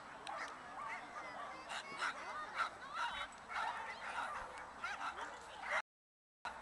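A dog barking rapidly and repeatedly in short, high-pitched yips, about two a second, as an agility dog does while running a course. The sound cuts out briefly near the end.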